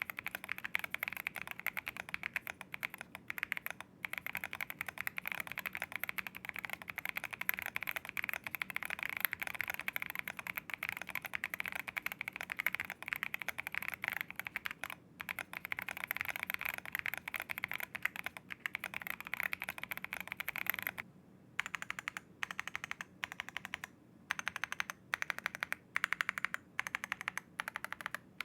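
Typing on a Monsgeek M1 v3 mechanical keyboard with Akko V3 Cream Purple Pro tactile switches, KAT Operator keycaps and a polycarbonate plate: fast, continuous keystrokes that thin out to slower, separate presses with short pauses about two-thirds of the way through.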